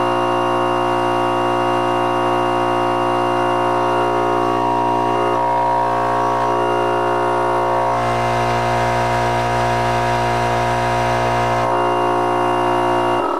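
Opened-up GM Delco hermetic compressor running out of its shell: its electric motor and piston pump give a loud, steady hum with a buzzing drone on top, cutting off abruptly right at the end.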